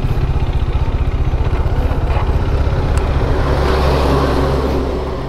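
Motorcycle engine running at low road speed, heard from the bike itself, with a fast, even pulsing beat. A broader rushing noise swells briefly about four seconds in.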